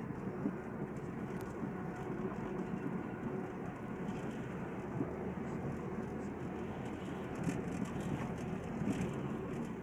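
Honda Dimension car running, with a steady engine and drivetrain rumble.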